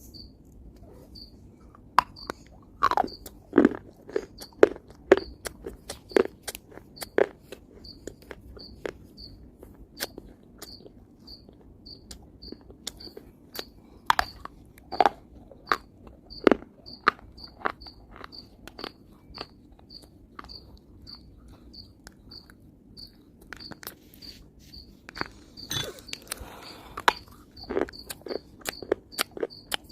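Crunchy bites and chewing of hard pieces of dry edible clay, sharp cracks coming in clusters with a brief rustling scrape near the end. A cricket chirps steadily in the background, a little more than once a second.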